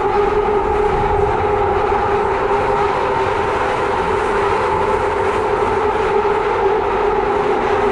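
London Underground Victoria Line train running at speed through a tunnel, heard from inside the carriage: a loud, steady rumbling roar with a steady whine held over it.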